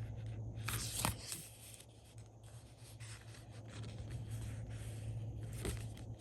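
Scratchy rubbing strokes of hand work on planner paper, the loudest about a second in and again near the end, over a steady low hum.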